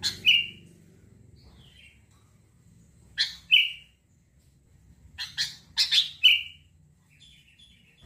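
Sooty-headed bulbul (kutilang) calling in short, sharp chirps: a couple of notes at the start, a couple more about three seconds in, then a quicker run of about five notes around five to six seconds in.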